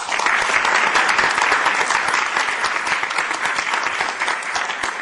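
Audience applauding: many hands clapping at once. It starts suddenly and eases off slightly near the end.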